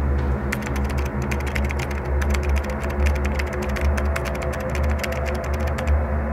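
Quick typing on a computer keyboard, starting about half a second in and stopping near the end, over steady low background music.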